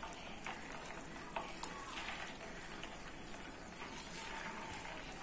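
Rice-flour fritters (chaula bara) frying in well-heated oil, a steady light sizzle with small crackles as fresh fritters go into the pan. A single sharp click about a second and a half in.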